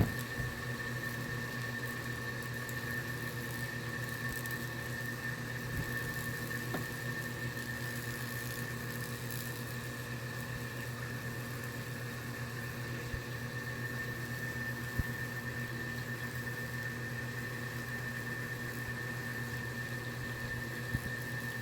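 A high-voltage transformer hums steadily while it drives current between two probes, burning a Lichtenberg fractal pattern into wood. A few faint clicks come through near the middle and near the end.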